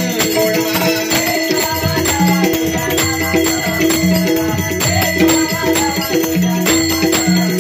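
Bhajan accompaniment: a pakhawaj drum beating a fast, even rhythm with small hand cymbals clashing on the beat, over steady held notes.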